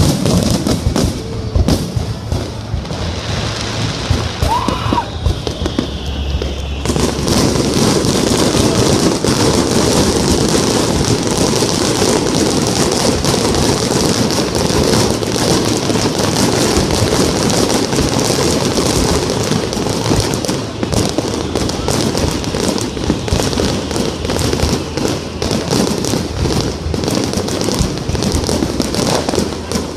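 Aerial fireworks going off: a few separate bangs and a short rising whistle, then from about seven seconds in a dense, continuous crackling of many bursts.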